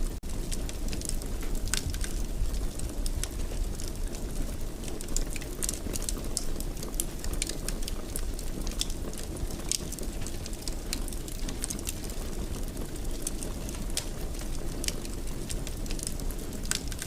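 Wood fire crackling in a fireplace: frequent small sharp pops and snaps over a steady low rush of burning.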